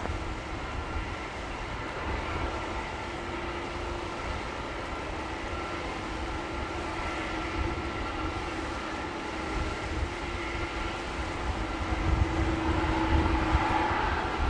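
Jet engines of airliners taxiing at an airport: a steady rumble with a thin, even whine, growing somewhat louder near the end.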